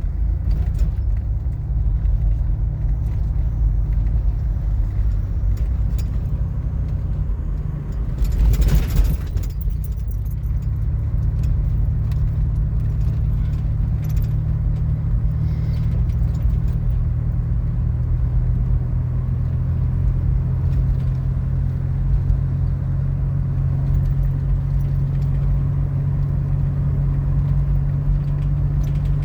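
Car cabin while driving: a steady low engine and road drone, with a brief louder rushing surge about nine seconds in.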